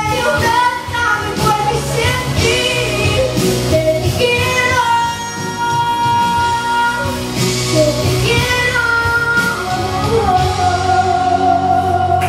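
A young female singer sings a pop ballad live into a microphone over piano accompaniment. Near the end she holds one long sustained note.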